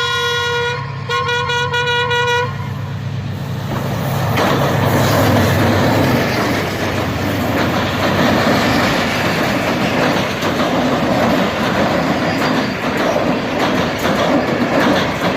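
A train's horn sounds twice: one steady note with strong overtones, broken briefly about a second in and stopping after about two and a half seconds. Then a train passes at high speed with a loud, continuous rushing rattle of wheels and carriages.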